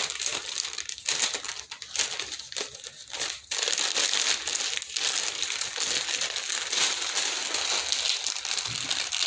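Packaging crinkling and rustling as it is handled and torn open by hand: scattered crackles at first, then continuous from about a third of the way in.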